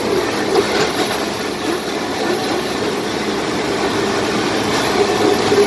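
Komatsu D70LE crawler bulldozers' diesel engines running steadily under load while dragging a heavy log, with a wavering squeal over the engine sound.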